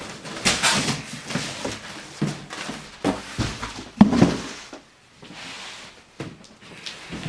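Packaging being handled: rustling of cardboard and packing material, with several thunks.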